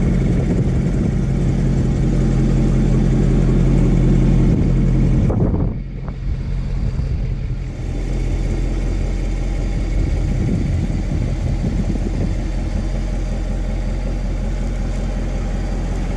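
Corvette's V8 engine running at a slow crawl as the car rolls over a rubber curb ramp. The steady hum dips suddenly about five seconds in, then carries on more quietly.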